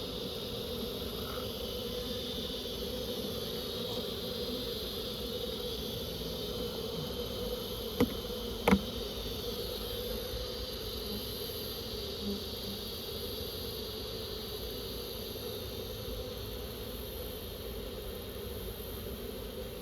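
Honeybees buzzing steadily in the air around a freshly relocated hive. Two sharp knocks come about eight seconds in.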